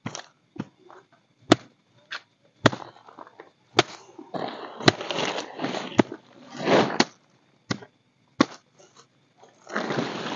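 A plastic tarp rustling and crackling as it is shaken out and spread, in two spells about four and ten seconds in, among about nine sharp, irregularly spaced clicks.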